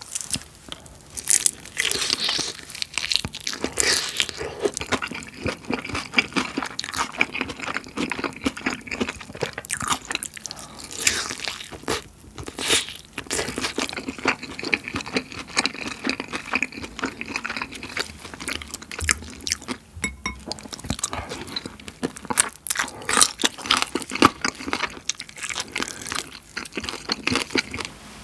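Close-miked crunching and chewing of crisp-battered fried chicken dipped in minced-garlic sauce: many sharp crackling bites in quick, irregular succession.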